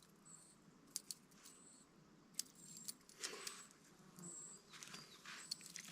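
Faint scattered clicks and soft rustles as a small, wriggling lake fish is handled and worked off the hook, with a few short, faint high chirps.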